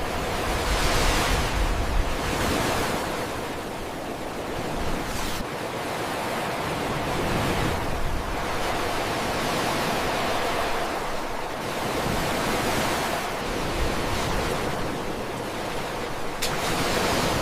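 Ocean surf washing onto a shore: a steady rush of waves that swells and fades every few seconds.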